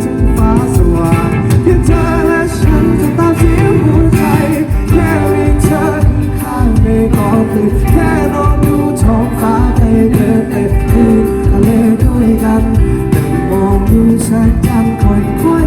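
Live pop band playing a song, with a sung vocal line over the band's full accompaniment and a steady beat.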